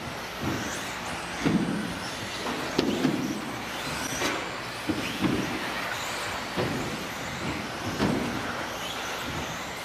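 Electric 1/10-scale 2WD RC buggies with 17.5-turn brushless motors racing: a continuous motor and tyre noise, with short louder surges roughly every second or so as cars pass and land jumps.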